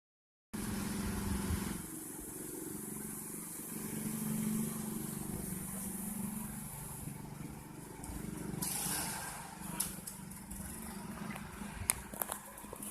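An engine running steadily with a low hum, and a few sharp clicks near the end.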